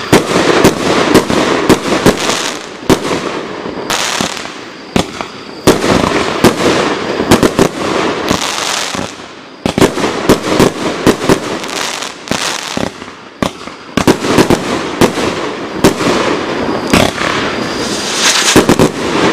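Nova Pyrotechnics Firestorm consumer firework cake (75 shots, 20, 25 and 30 mm tubes) firing in rapid sequence: sharp launch and break reports several times a second over a steady hissing, crackling wash from the bursting stars, with brief lulls about a third and two-thirds of the way through.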